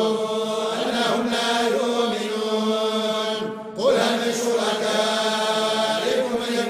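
A group of men chant the Quran in unison in the Moroccan collective style, holding long drawn-out notes. The voices break off briefly about three and a half seconds in, then resume.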